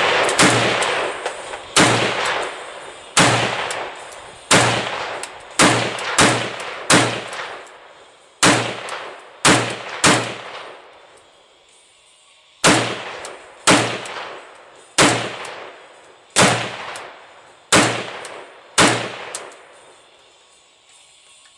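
Riley Defense AK-47 rifle in 7.62x39mm fired semi-automatically, about seventeen aimed shots roughly a second apart, each followed by a short echo. There is a pause of about two seconds midway through the string.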